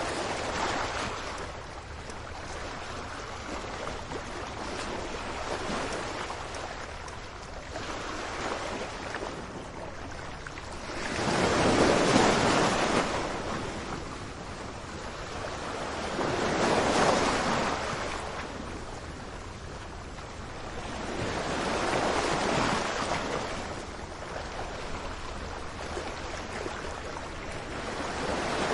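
Sea waves surging and breaking on the shore, a continuous wash that swells and falls back every few seconds, with three bigger waves crashing in the middle part.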